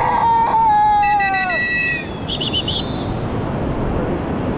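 Whitewater rushing steadily, with rafters whooping over it: a long high yell that falls away at the end, overlapped by a second, higher call, then a short warbling cry about two and a half seconds in.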